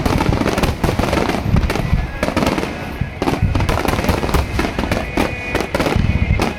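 Fireworks finale: a dense, unbroken barrage of shell bursts and crackling, one report after another.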